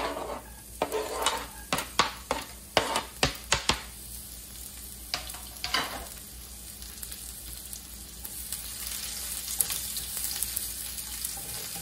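Minced garlic sizzling in hot olive oil in a nonstick frying pan. Sharp knocks and scrapes in the first few seconds as the knife pushes the garlic off a plastic cutting board into the pan, then the sizzle grows steadily louder, with a spatula stirring near the end.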